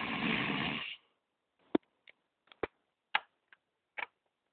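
A raspy, growl-like voice lasting about a second, then a scattering of about seven sharp clicks.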